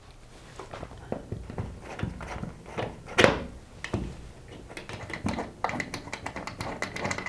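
Screwdriver undoing the faceplate screws of a plastic 13 A wall socket: small scattered clicks and taps of the tip working the screw heads, more frequent in the second half, with one louder knock about three seconds in.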